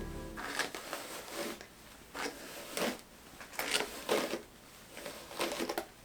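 Irregular short scratchy rustles close to the microphone, about a dozen over six seconds: makeup being handled and applied by hand.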